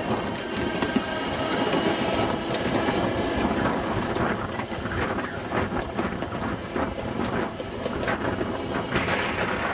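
Ride-on 7.5-inch gauge miniature train running along its track, with the wheels clattering and rattling steadily over the rails.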